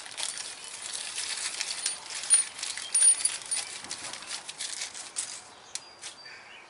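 Crinkling and rustling as small parts are handled, then two sharp clinks about two and three seconds in, each with a brief bright ring: small steel hex lock nuts clinking on concrete.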